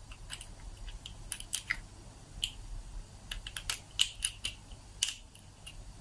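Master 410 lockout padlock being picked with a hook pick and tension wrench: small, irregular clicks and scrapes of the pick against the pins in the cylinder, a few a second.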